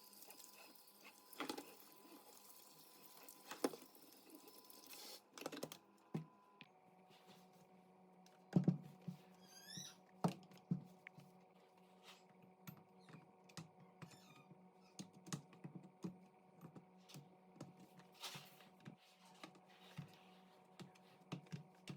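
Faint, scattered light clicks and knocks of objects being handled and set down in a kitchen, over a low steady hum, with a few louder knocks about halfway through.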